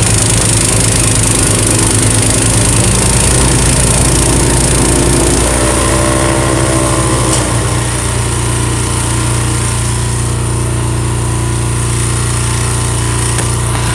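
Honda HSS1332 snowblower's single-cylinder engine running steadily while clearing snow, settling a little quieter and lower about halfway through.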